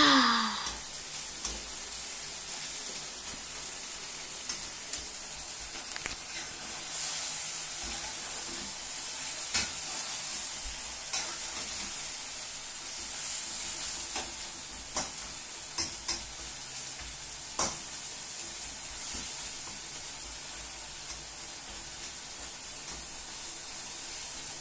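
Beef in black bean stir fry sauce sizzling in a hot frying pan, a steady hiss broken by occasional sharp clicks.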